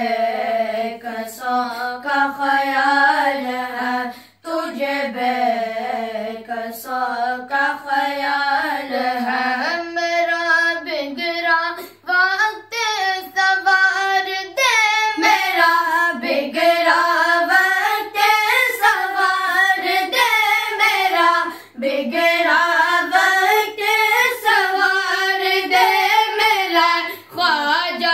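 Boys' voices singing a manqabat, a devotional Islamic hymn, a cappella with no instruments.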